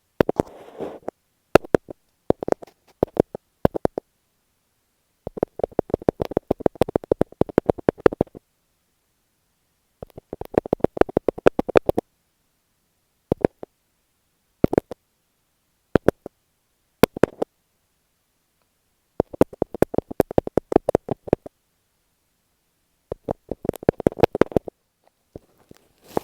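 Fingertips tapping on masking tape stuck over an earphone microphone, heard up close through the mic itself. The taps come in rapid flurries of several a second, with single taps in between and dead silence in the gaps.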